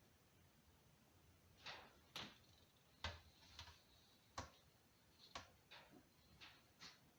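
Faint, light clicks and taps, about ten of them at irregular intervals starting a second and a half in, from the small metal internal parts of a power steering pump being handled and set down during disassembly.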